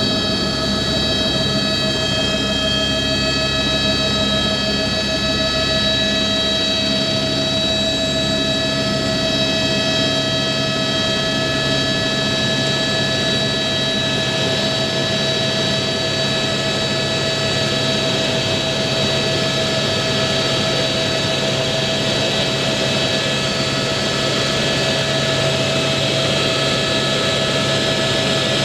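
Helicopter engine and rotor heard from inside the cabin: a steady loud drone with a high turbine whine of several steady tones, as the helicopter climbs away after take-off. The deepest part of the rumble drops away about seven seconds in.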